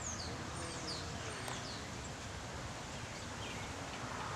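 Outdoor ambience: steady low wind noise, with a few high, quickly falling bird chirps in the first couple of seconds and a faint chirp later on.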